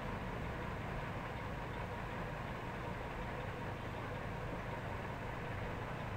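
Steady low hum with hiss, unchanging throughout, with no separate events.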